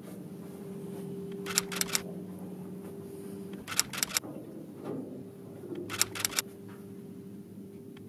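Steady low hum of a room, broken about every two seconds by a quick cluster of three or four sharp clicks.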